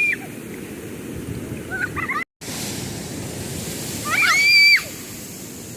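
Ocean surf washing steadily, with a bird calling: a short call about two seconds in and a longer, louder call about four seconds in. The sound cuts out completely for a moment just after two seconds.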